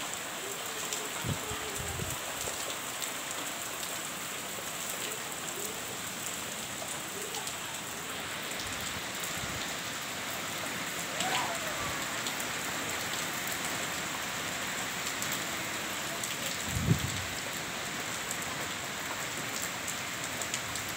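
Heavy rain falling steadily. A few low thumps come through it, the loudest about 17 seconds in.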